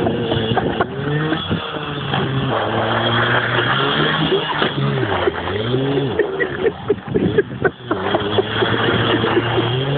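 Small motorcycle engine revving unevenly as the bike is spun in tight circles. Its pitch dips and climbs back up around the middle.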